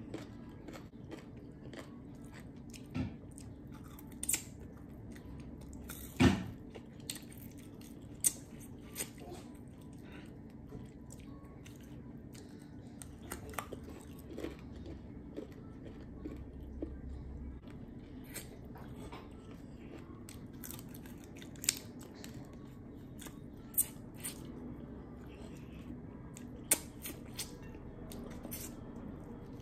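Close-miked eating: a person chewing and biting food, with scattered sharp clicks and taps throughout, the loudest about six seconds in.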